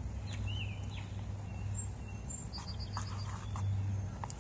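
Birds chirping in the background: a few short high calls and glides, and a quick run of about five pips a little past halfway, over a steady high-pitched insect drone and a low rumble.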